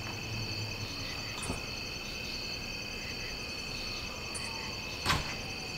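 A steady, high chorus of insects chirping. There is a single soft click about five seconds in.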